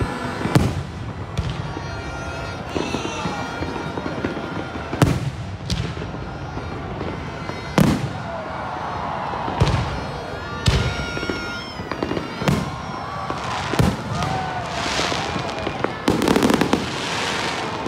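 Fireworks display: aerial shells bursting with sharp bangs every second or two, about ten in all, with a dense crackling burst near the end. Crowd voices carry on underneath.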